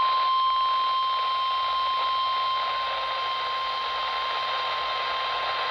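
NOAA Weather Radio warning alarm tone, a single steady 1050 Hz note, played through a weather radio receiver over a bed of static hiss during the required weekly test.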